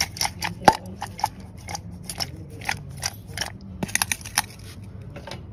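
Pieces of paneer tikka, capsicum and onion tossed in a stainless steel bowl, giving a run of quick irregular clicks and light knocks against the steel, about three or four a second, with one sharper knock just under a second in.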